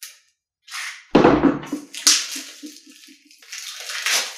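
Plastic wrapping on a deck of game cards crinkling and tearing as the deck is unwrapped by hand, in irregular crackles that thicken near the end. A dull knock comes about a second in.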